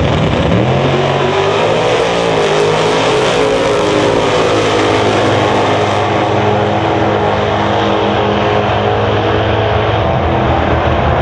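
Two drag-racing cars launching off the line at full throttle and running down the strip, loud engines climbing in pitch and dropping back a few times in the first seconds as they shift through the gears, then carrying on steadily.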